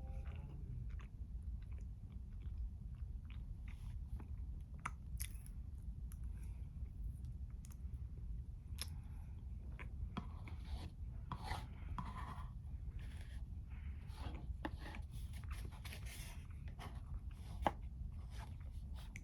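Close-miked chewing and wet mouth sounds from eating brownie with strawberries and Greek yogurt, with many small irregular clicks, over a steady low hum.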